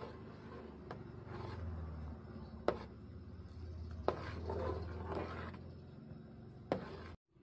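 A metal spoon stirring thick ube porridge in a stainless steel pot, with soft scraping and three sharp clinks of the spoon against the pot, over a low steady hum.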